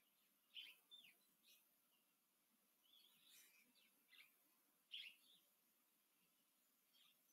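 Faint, short chirps of small birds, one every second or so, over near silence.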